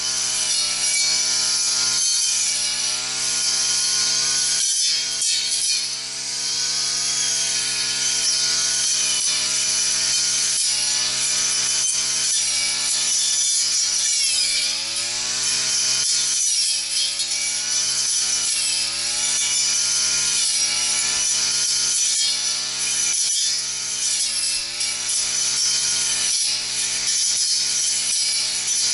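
Engine brush cutter running at high revs while cutting grass. The engine note dips and recovers several times as the cutting head bites into thicker growth and takes load.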